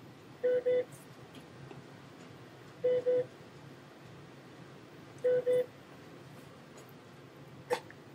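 Electronic double beep, two short tones in quick succession, repeating three times about two and a half seconds apart, followed by a single sharp click near the end.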